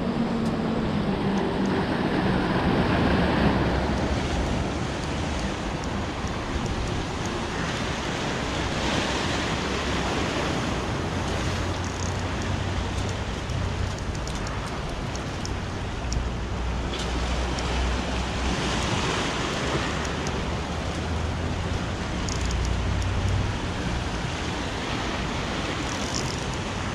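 Sea waves surging and washing on the shore, swelling up every several seconds, with wind rumbling on the microphone.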